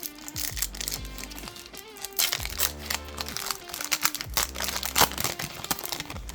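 Crinkling of a trading-card pack wrapper as a pack is opened and cards handled, in a run of irregular rustles, the sharpest about five seconds in, over background music.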